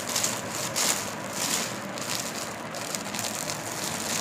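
Cloth rustling in uneven swishes as suit fabric is handled and rearranged.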